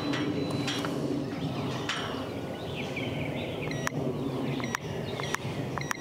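Gate opener keypad being keyed: four button presses in the second half, each a sharp click with a short high beep, as a four-digit guest PIN is entered.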